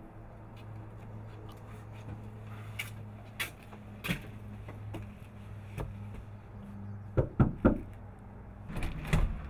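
Three loud knocks on a front door, about seven seconds in, after a few light footsteps on a concrete step. More door sounds follow near the end as the door is opened.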